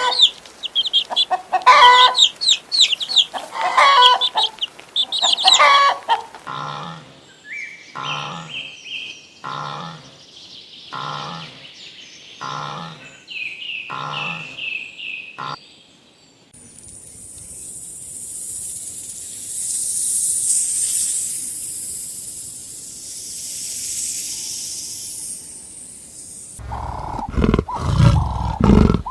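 A string of separate animal-sound recordings: chickens clucking for the first several seconds, then a call repeated about once a second, then a long stretch of even high hiss. Near the end, loud deep animal sounds begin.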